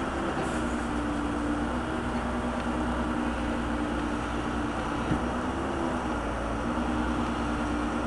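Old Case backhoe's engine running steadily with an even drone, with a single short knock about five seconds in.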